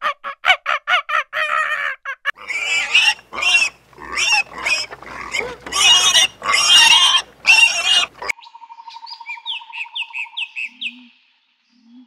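Domestic piglets squealing loudly in a run of harsh, shrill cries for about six seconds, after a quick series of short pitched calls at the start; faint high chirps follow near the end.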